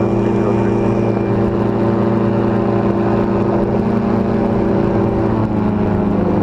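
Powered parachute's engine and propeller running steadily in level flight, heard from the cart. About five seconds in, the engine's pitch drops slightly.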